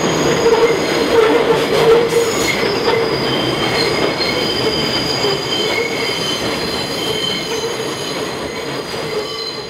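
Elevated subway train running over a steel viaduct, a steady rumble and clatter with high, steady wheel squeal on top, easing off slightly toward the end.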